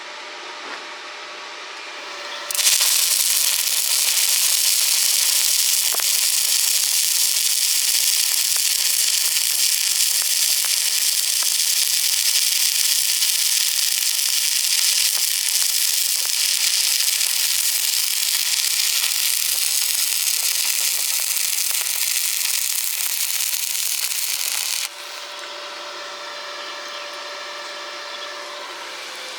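Stick welding arc running on thin galvanized iron: a loud, steady hiss that strikes about two and a half seconds in and cuts off suddenly about twenty-two seconds later.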